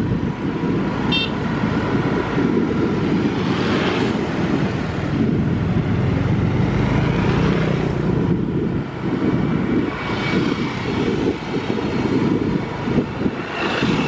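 Steady running rumble of a motorbike ridden along the road beside the railway, with a brief high beep about a second in.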